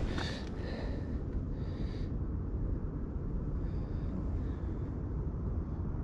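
Wind buffeting the microphone of a chest-mounted action camera, a steady low rumble.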